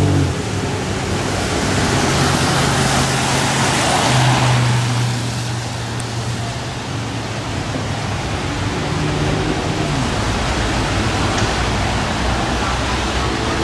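A vehicle passing on a wet road, its tyres hissing through standing water, swelling to a peak about four seconds in and then easing off, over a steady low engine hum.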